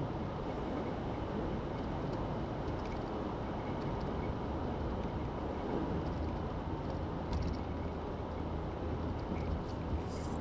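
Steady road noise of a car driving at highway speed: tyre rumble with a low, even engine hum.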